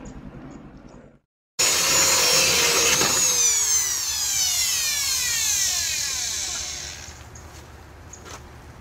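A power tool running at high speed, starting abruptly about a second and a half in, then released and winding down over several seconds, its whine falling steadily in pitch until it stops.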